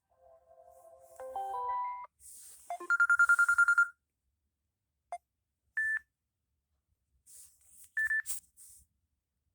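Samsung Galaxy Tab A8 ringtones played in short snippets one after another, each cut off abruptly. First comes a brief stepping electronic melody, then a fast trilling tone about three seconds in, then a couple of single short beeps separated by silence.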